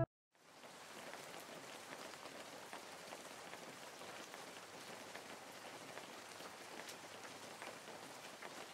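Steady rain falling on a wet paved street, an even hiss with scattered drop ticks, coming in faintly after a brief silence at the start.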